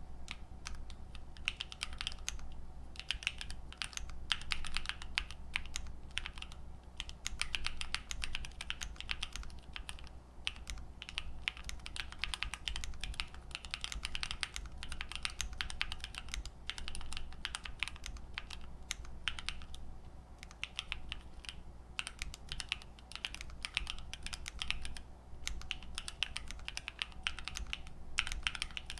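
Continuous typing on a Sofle v2 split mechanical keyboard with factory-lubed Wuque Aurora switches, ePBT keycaps, an FR4 plate and an aluminium case filled with poly-fil: a quick, irregular run of keystrokes with a few short pauses.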